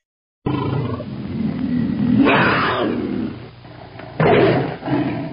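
Tiger roaring as a sound effect: a growl that swells into a long roar about two seconds in, then a second, shorter roar about four seconds in.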